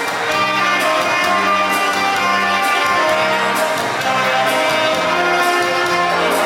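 Two saxophones playing a duet, holding sustained melody notes over a bass line that steps from note to note, with light percussion ticking along.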